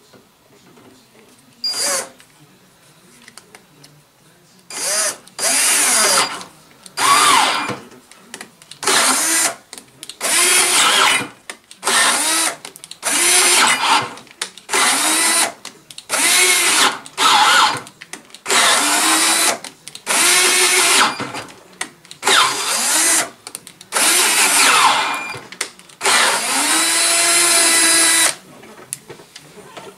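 Cordless drill driving an 8 mm tap into the end of an aluminium T-slot extrusion, run in repeated short bursts of a second or two, its motor whine rising and falling in pitch with each pull of the trigger. There is one short burst about two seconds in, then a steady series of them, the last one the longest.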